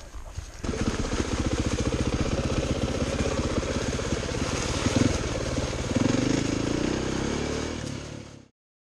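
Dirt bike engine running as the bike rides along, a dense steady beat of firing pulses that starts just under a second in. The pitch rises a little about six seconds in, then the sound fades and cuts off suddenly near the end.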